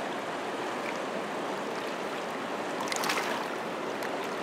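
River water rushing steadily through a fast, choppy run. A brief louder crackle of splashing comes about three seconds in.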